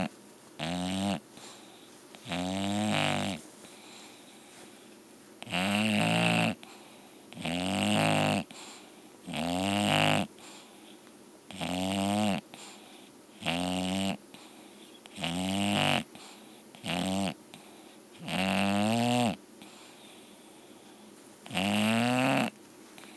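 A sleeping English Bulldog snoring in a steady rhythm: about a dozen pitched snores, each lasting roughly a second, coming about every two seconds with short quiet gaps between.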